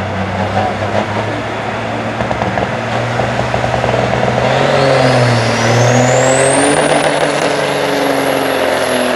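Semi truck's diesel engine running hard under full load as it pulls the weight sled, its pitch rising slowly, with a high whine climbing in pitch from about halfway through and then holding.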